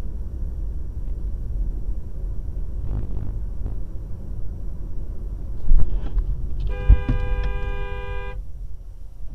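Steady low road and engine rumble of a car driving. A little past halfway there is a loud low thump, then a car horn sounds one steady blast of about a second and a half.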